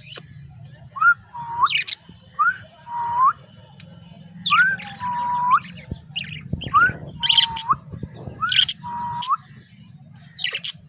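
Pet budgerigars chirping and squawking in short sharp bursts, with a clear two-note whistle repeated about five times: a short rising note followed by a longer dipping one.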